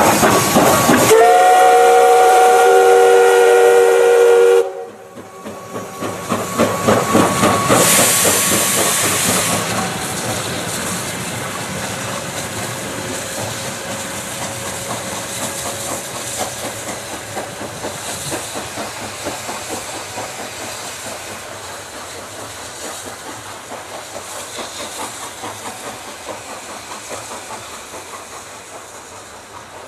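P36 steam locomotive's whistle sounding several notes together for about three seconds and cutting off. The locomotive then pulls away with a fast, steady rhythmic beat and a strong burst of steam hiss, the sound gradually fading as the train moves off.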